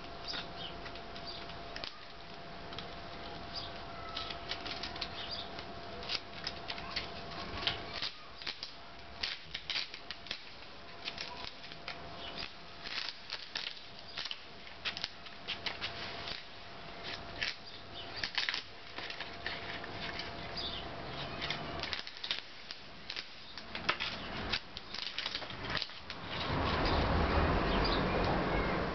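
Paint-covered masking being peeled off a freshly painted pinball backbox, rustling and crackling with many short, sharp tearing clicks. Near the end it turns into a louder, denser rustle.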